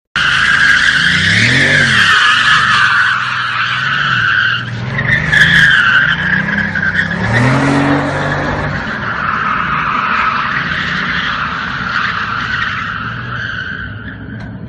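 Car tyres squealing in a long, wavering skid while the engine revs up and down several times; the sound starts suddenly.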